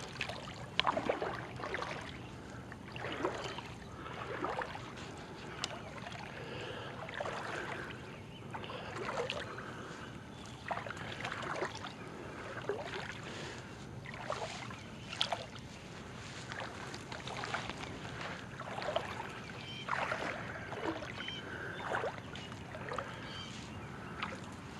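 A person wading through shallow, weedy lake water, a foot or two deep: irregular sloshing and swishing of legs pushing through water and weeds, about one step a second.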